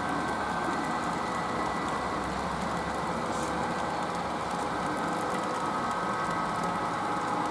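HO scale model train running on the layout: a steady mechanical hum with several held tones and faint light ticks.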